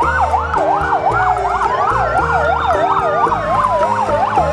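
Fire engine sirens: one in a fast yelp, rising and falling about four times a second, over a second in a slow wail that falls and climbs again. A steady musical backing sits underneath.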